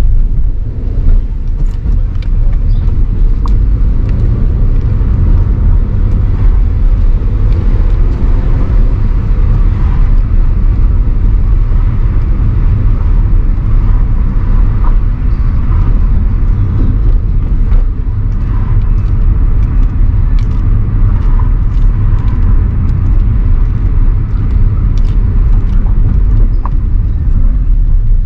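Steady low rumble of a car driving, with a few faint clicks over it.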